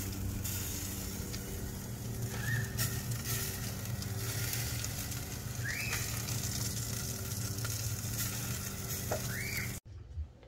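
Rotisserie chicken sizzling over a charcoal fire: a steady hiss over a low hum, with three short rising chirps. The sizzle cuts off abruptly near the end.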